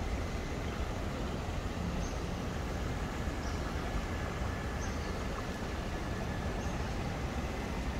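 Steady outdoor background noise with a deep rumble, with a few faint, short high chirps now and then.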